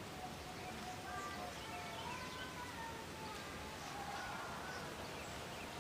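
Faint voices in the background over steady outdoor noise, with no clear nearby sound.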